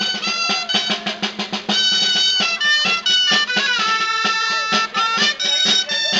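Traditional folk street music: a high, held melody line over snare drum rolls and quick drum beats.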